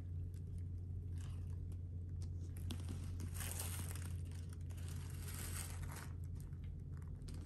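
Faint rustling and handling noises come and go over a steady low hum.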